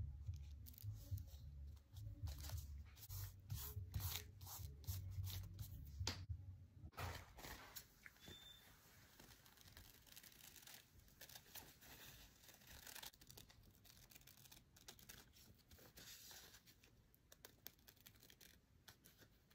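Faint crinkling of a thin paper napkin being handled, with many short crackly strokes for the first several seconds, then quieter snipping as scissors cut through the napkin.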